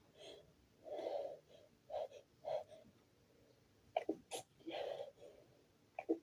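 A person sneezing repeatedly in a stifled sneezing fit, trying to voice an "achoo" while holding the sneezes back. There are several short sneezes in quick succession, the strongest about a second in and near the five-second mark, with sharp snapping catches around four seconds and again near the end.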